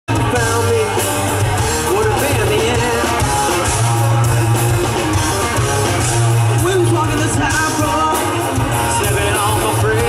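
Live rock band playing loudly through a PA: electric guitar, bass guitar and drums with cymbals, with a wavering lead melody on top.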